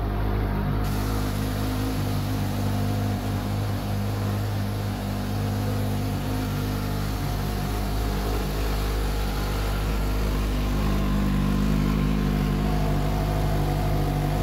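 Suzuki GSX-S 750's inline-four engine idling steadily through an IXIL slip-on exhaust, a little louder over the last few seconds.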